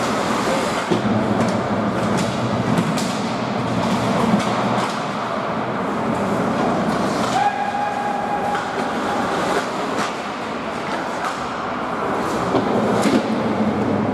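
Ice hockey play on a rink: skates scraping and carving the ice under a steady hall rumble, with frequent sharp clacks of sticks and puck. A short steady tone sounds a little past halfway.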